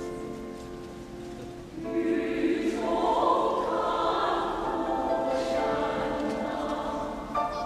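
Choir singing in a reverberant church: a soft held chord, then fuller, louder voices come in about two seconds in and carry on.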